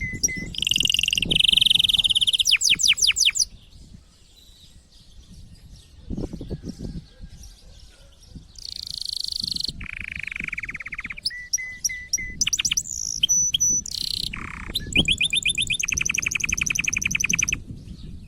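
Male domestic canary singing in breeding condition, in phrases of fast trills and rapidly repeated notes. The song breaks off for a few quieter seconds near the middle, then resumes.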